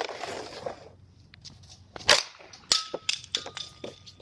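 Slap shots with a Bauer Ag5nt composite hockey stick off a plastic shooting pad: a sharp slap and short scrape at the start, then two loud cracks of stick on pad and puck about two seconds in, with a few lighter clacks after.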